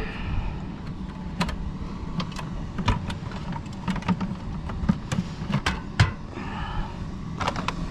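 Scattered clicks and knocks of equipment being handled and moved, over a steady low rumble.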